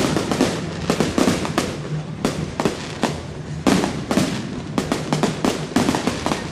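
Fireworks going off in quick, irregular succession: many sharp bangs, several a second, some louder than others, overlapping with crackling between them.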